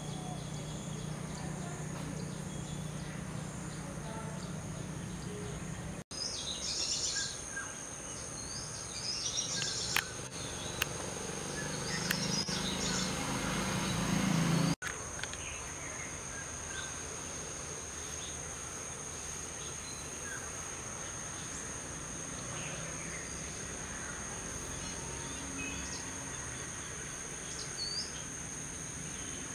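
Steady high-pitched insect trilling with scattered short bird chirps, busiest in the middle stretch, over a low hum in the first few seconds. The sound drops out sharply twice, at about six and fifteen seconds in.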